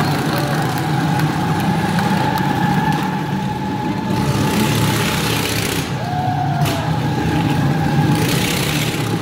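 Motorcycle engine running steadily as the bike circles the wooden wall of death, swelling into a louder rush twice, about four and eight seconds in, as it sweeps past close by.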